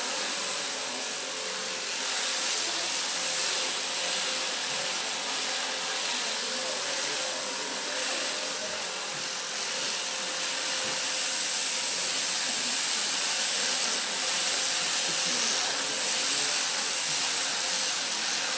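Electric sheep shears running steadily through a sheep's fleece: a continuous hiss and buzz with a faint steady hum.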